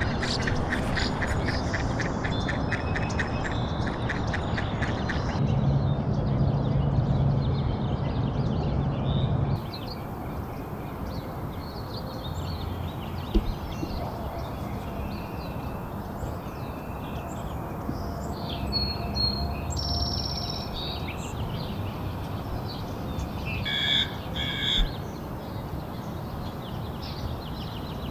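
Birds calling and chirping over a steady background hiss, with a quick run of even ticks in the first few seconds and two louder calls near the end.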